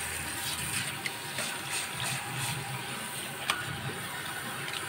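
Water spraying steadily from a salon basin's handheld shower head onto hair and scalp during a rinse.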